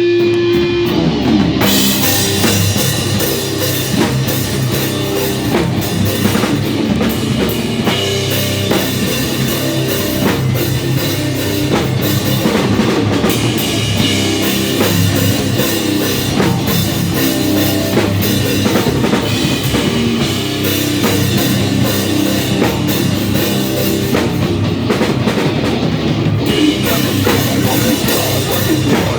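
Live rock band playing loud, with a drum kit and electric guitars. The full band comes in about a second and a half in after a held guitar note, and the cymbals drop out briefly near the end.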